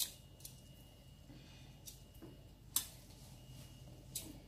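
A few light metal clicks and taps, the loudest a little under three seconds in: kitchen tongs knocking against a stainless steel pot as boiled chicken drumsticks are lifted out. A faint steady hum runs underneath.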